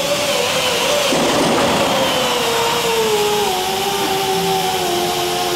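A motor-driven machine running with a steady whine whose pitch wavers and slowly sinks over several seconds.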